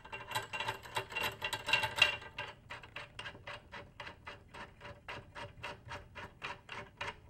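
Metal claw hook and tension rod rattling against a bass drum hoop with a light metallic ring for the first two seconds, then a steady run of light clicks, about four a second, as the rod is spun by hand into its tension casing.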